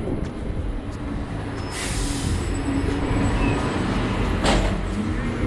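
New Routemaster hybrid double-decker bus running close by with a steady low hum. A sharp hiss of compressed air comes about two seconds in and a shorter one about four and a half seconds in.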